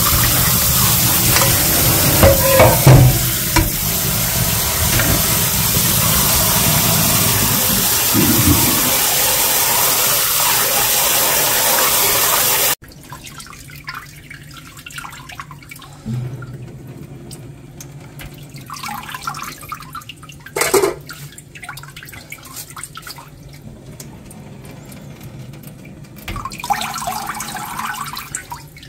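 Kitchen tap running hard into a stainless steel sink while cooked noodles are rinsed in a pot and colander. About halfway through the sound cuts off suddenly to a much quieter trickle, with a few splashes and a knock.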